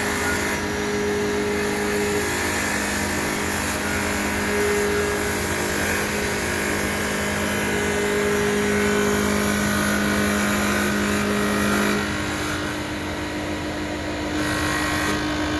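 Automatic CNC wood lathe running: a steady motor hum over a hiss. About twelve seconds in the hum changes, dropping away briefly before a different steady tone takes over.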